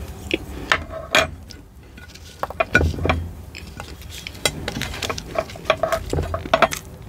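Irregular sharp clicks and clinks of a small metal fork and fruit pieces against a ceramic plate, some ringing briefly, loudest about a second in and near the end.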